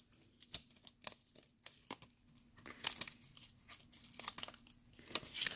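Holographic adhesive vinyl being peeled off its paper backing by hand while weeding a cut decal: irregular soft crackles and crinkles as the film lifts away.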